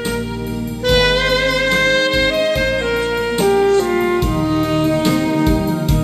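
Alto saxophone playing a slow melody in long held notes over a backing accompaniment with a low bass and drum part.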